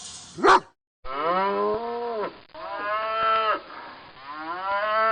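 A short dog bark right at the start, then a cow mooing: two long moos and a third that rises in pitch near the end.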